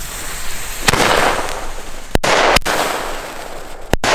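Two Nico thunder-tube fireworks (single-shot mortar tubes with a fire-pot and bang effect) going off: a first report about a second in followed by a long rushing hiss, then three sharp bangs, two close together just past halfway and one near the end.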